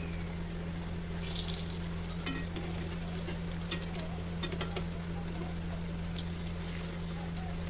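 Batata vadas deep-frying in hot mustard oil in a kadai, a steady sizzle, with scattered light clicks as a slotted metal spoon turns them over. A steady low hum runs underneath.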